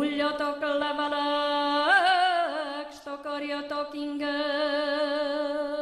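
A woman singing a slow Hungarian folk song alone, without accompaniment. She slides up into a long held note, wavers through an ornamented turn about two seconds in, breaks briefly, then holds long notes again.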